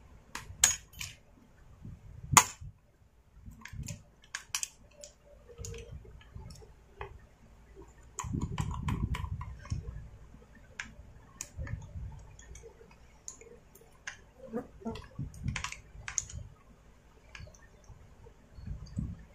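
Scattered sharp clicks and taps of small plastic and metal parts being handled while the carburettor and throttle linkage are fitted on a Stihl MS250 chainsaw. A duller rubbing rumble of handling comes in about eight seconds in and lasts a couple of seconds.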